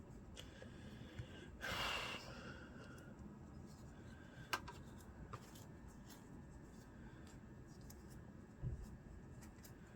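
Quiet handling of small pistol parts and cleaning tools during cleaning: a few faint clicks and light taps, with one short breathy hiss about two seconds in.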